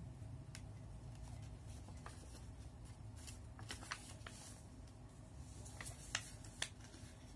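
Origami paper being handled and folded by hand: scattered light rustles and crisp crackles of creasing paper, with two sharper snaps near the end, over a low steady hum.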